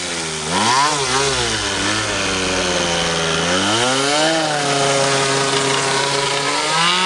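Radio-controlled model plane's motor and propeller buzzing as it flies close by, the pitch swooping up and down twice about a second in, dipping and rising again around four seconds, and climbing near the end.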